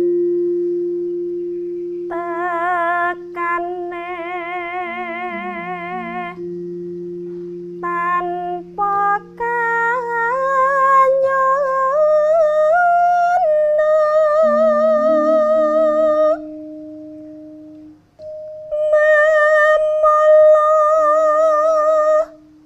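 Background music: sustained low held notes under a slow, high melody with vibrato that enters about two seconds in and pauses briefly near the end.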